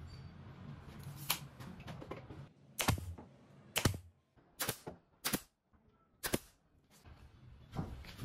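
A green hand-held nail or staple gun firing into a pallet-wood box frame: five sharp shots about a second apart, starting about three seconds in.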